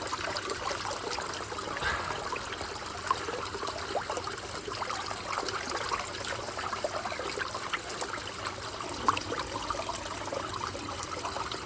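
Running water trickling and splashing steadily, with many small irregular splashes.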